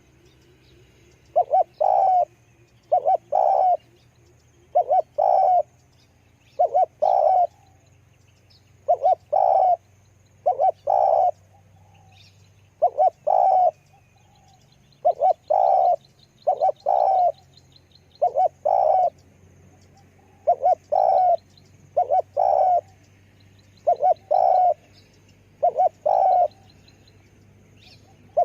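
Spotted dove cooing over and over, a phrase of two or three deep coos about every two seconds. Faint high chirps from small birds sound behind it.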